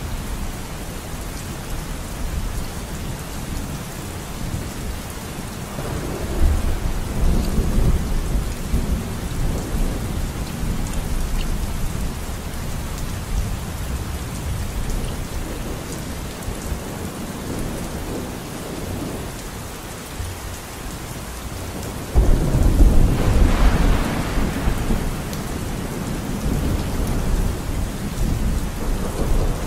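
Steady rain falling, with two low rolls of thunder: one about six seconds in and a louder one about three-quarters of the way through.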